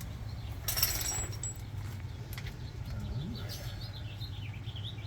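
Birds chirping outdoors, a run of quick wavering calls in the second half, over a steady low hum, with a brief rustling noise about a second in.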